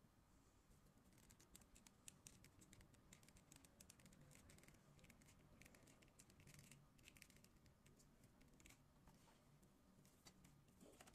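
Faint clicks and scratchy rubbing from a McFarlane DC Multiverse Hawkman 7-inch plastic action figure as its joints are bent and posed by hand. Irregular clicks start about a second in and keep coming.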